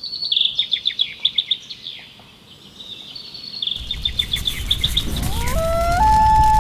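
Nature sound effects: a songbird's quick high chirping trills, then a rushing, crackling noise that swells from about four seconds in, under a common loon's wail of long clear notes stepping up in pitch.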